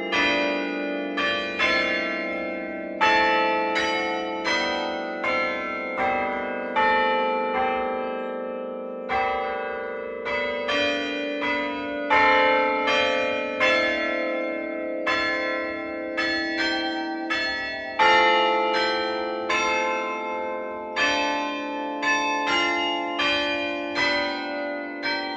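Church tower bells struck one after another in an uneven rhythm, roughly one to two strokes a second, sounding several different pitches like a slow tune. Each bell keeps ringing on under the next stroke.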